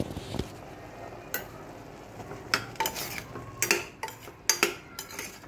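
A metal spoon stirring and scraping inside a pressure cooker, mixing ginger-garlic paste into frying mushrooms. There is a series of scrapes and clinks against the pot, coming more often in the second half.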